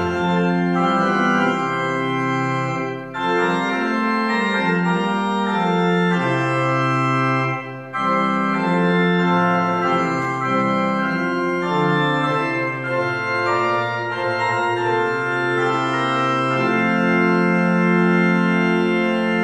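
Organ music: sustained chords changing every second or two, with short breaks between phrases about 3 and 8 seconds in.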